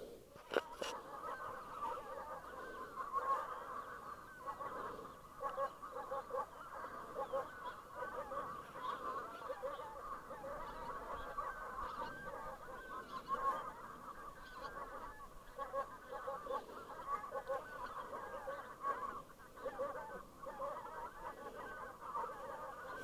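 A flock of wild geese honking, with many short overlapping calls in steady chorus.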